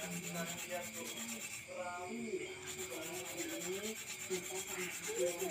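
Brass air-rifle barrel spun back and forth between the palms, its end grinding against the base beneath it: a continuous rubbing rasp. The freshly cut barrel end is being smoothed and crowned.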